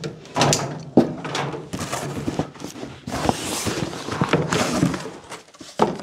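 Thick cardboard product box being opened by hand: a run of knocks and thuds as the tight lid is worked loose and slid off, with cardboard rustling about three to five seconds in.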